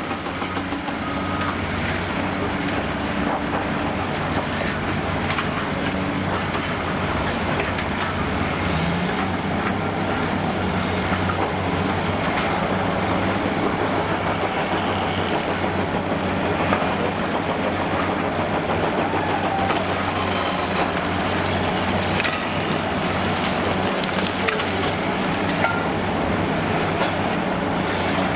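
Large diesel demolition excavator running steadily under load, with scattered clattering and crunching of concrete debris.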